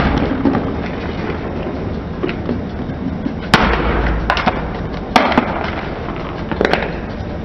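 Car tyre rolling slowly over small plastic modelling-dough tubs, crushing them: a series of sharp plastic cracks and pops over a low rumble, the loudest about halfway through and again a couple of seconds later.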